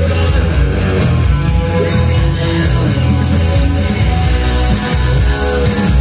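Recorded music with a strong bass line, played loud and steady through a pair of JBL 4312 control-monitor loudspeakers driven by a Sony TA-3650 integrated amplifier.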